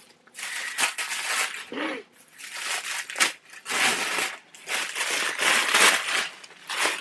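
Thin pink wrapping being pulled off a book and crumpled by hand: a run of irregular rustling, crinkling bursts.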